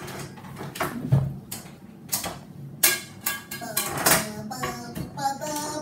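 Kitchen clatter of sharp knocks and clinks, with a voice making wordless sounds over the second half.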